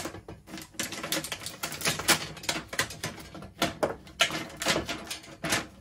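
Snare drum hardware being handled as the drum is taken apart: a run of quick, irregular clicks and knocks.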